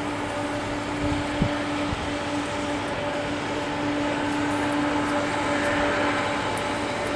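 Jet airliner engines running, a steady rushing noise with a steady low hum, growing a little louder around five to six seconds in. A few brief low thumps of wind on the microphone.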